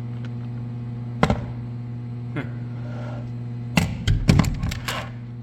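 Ryobi P317 cordless crown stapler firing staples: one sharp snap about a second in, then a quick run of snaps and knocks near the end. A steady low electrical hum lies underneath.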